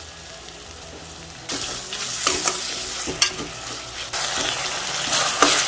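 Tomatoes and onions frying in oil in a kadai, sizzling, with a spoon scraping and stirring through them. The sizzle comes up suddenly about a second and a half in and grows louder again near the end.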